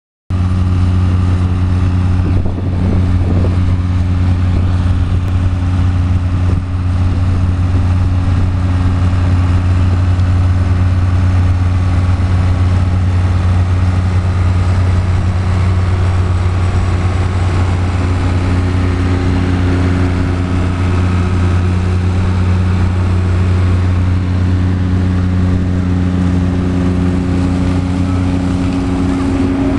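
Ford 4000 and 5000 tractor engines running steadily under load, side by side, working a PTO-driven trailed forage harvester that chops grass and blows it into a silage trailer. The result is a loud, even drone with a deep steady hum.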